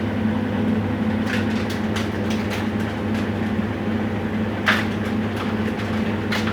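Whirlpool washing machine running on test with a steady motor hum, its suspension rods freshly replaced. A few light clicks and knocks come through, the sharpest about two-thirds of the way in.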